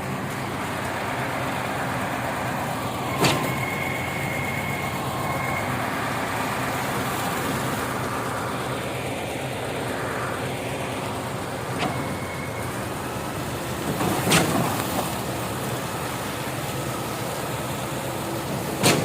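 Heavy truck engine running steadily, with four short sharp knocks spread through it.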